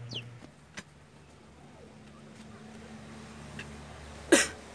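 Low, steady engine drone of a distant motor vehicle, with a few light clicks and one sharp knock near the end.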